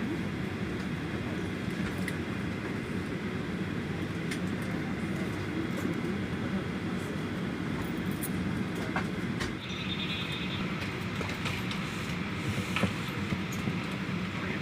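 Steady low rumble and rattle of an airport apron bus driving out to the plane, heard from inside the bus.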